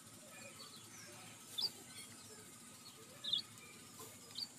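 A bird chirping in the background: three short, high chirps over faint steady background noise.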